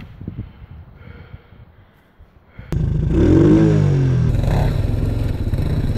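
Quad bike (ATV) engine heard close up: it comes in suddenly and loud about three seconds in, revs up and back down once, then keeps running steadily.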